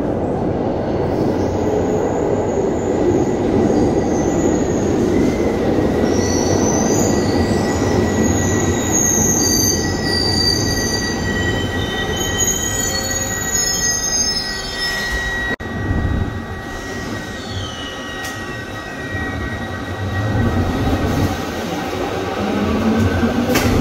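Glasgow Subway trains running through the station: a steady rumble of wheels on rail, with high-pitched wheel squeals during the first half. After a sudden cut, a second train passes, ending with a rising whine.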